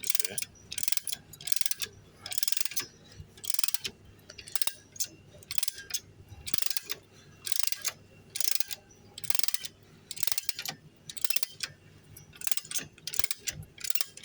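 A car jack being pumped to lift the car, a steady run of short metallic ratcheting strokes, about one to two a second.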